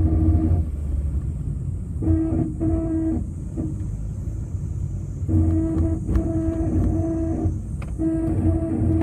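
Honda N-BOX on a steep climb: a low running rumble with a droning hum of fixed pitch that cuts in and out four times, in spells of about one to two seconds. The hum is the car's abnormal noise.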